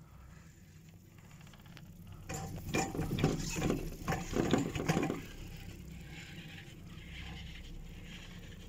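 Fixed-grip double chairlift's machinery clattering: a dense burst of rattling clicks lasts about three seconds in the middle, over a low steady hum.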